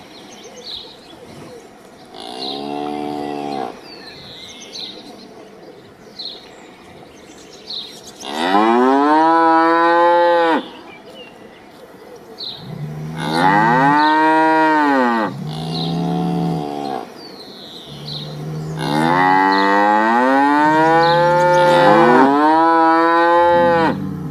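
Cattle mooing: several long, drawn-out moos that rise and then fall in pitch, some of them overlapping, with faint bird chirps in the gaps.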